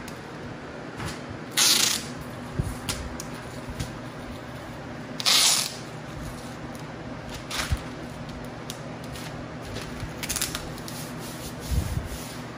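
Sticky tape pulled off its roll in two loud, hissing rips of about half a second each, about two seconds in and again at about five seconds, with quieter rubs and rips as hands press the tape and paper flat against the wall.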